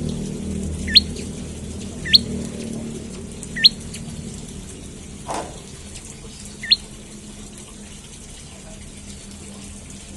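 Prenjak lumut bird giving four short, sharply rising chirps at uneven gaps, over a steady background hiss, with one brief dull noise about five seconds in.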